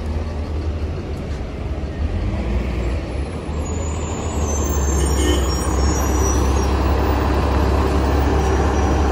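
Cummins ISM diesel engine of a 2006 NABI 40-LFW transit bus running with a steady low rumble. It grows louder about halfway through as the rear engine compartment comes close.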